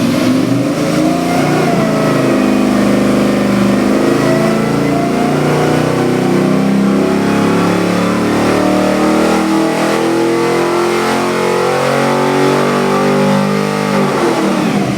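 Rebuilt Chevy LS2 6.0-litre V8 running and being revved, its pitch climbing and falling several times before dropping back near the end.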